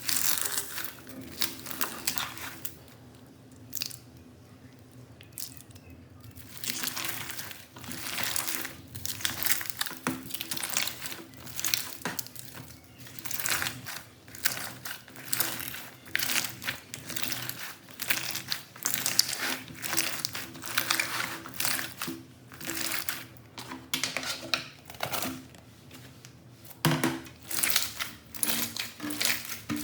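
Slime being pressed and squeezed by hand, crackling and crunching in short repeated strokes, with a lull of a few seconds near the start.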